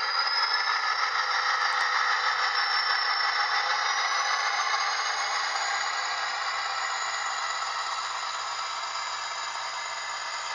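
Model train rolling across a model truss bridge, its metal wheels rattling and clattering steadily on the rails. It fades a little in the second half as the train moves away.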